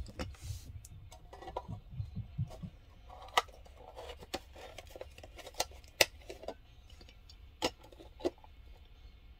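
Light handling sounds of a small die-cast model car: scattered sharp clicks and taps as the metal car and fingers touch the tabletop, with a soft rubbing rumble early on.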